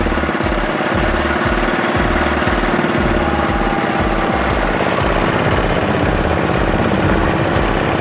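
Single-cylinder diesel engine of a two-wheel walking tractor chugging under load as it pulls a loaded trailer through deep mud, with a combine harvester's engine running close behind.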